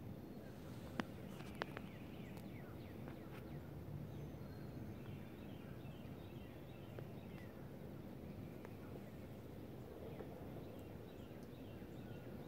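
Faint outdoor ambience: small birds chirping in short, repeated calls through a low steady rumble, with two sharp clicks between one and two seconds in.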